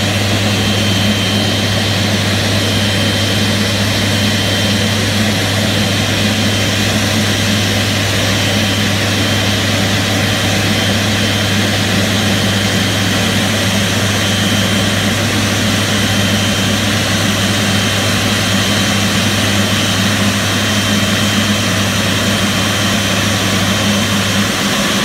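Twin-engine jet airliner's turbofan engines running steadily at taxi power, close by, with a steady high whine over a low hum.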